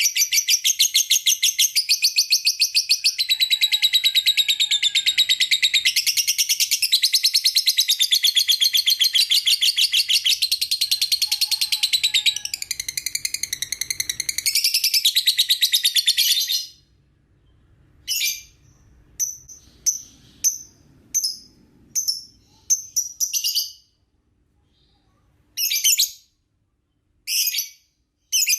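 Young lovebird singing a long, very fast chattering trill (the "ngekek" of lovebird keeping) for about sixteen seconds, then breaking off into short separate chirps roughly once a second.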